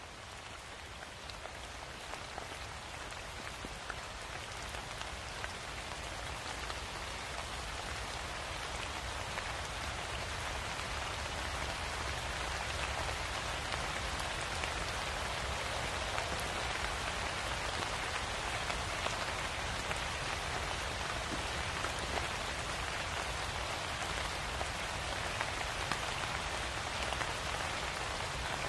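Steady rain falling: an even hiss of water with scattered drop ticks, slowly growing louder.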